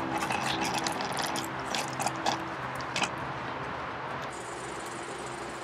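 Light, irregular clicking and rattling over a steady low hum.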